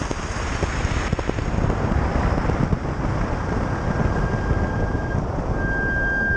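Wind buffeting the microphone and tyre and road roar from an open-bodied, Tesla-motored electric race car driving down a track straight, with no engine note. A steady high tone comes in faintly partway through and grows strong near the end.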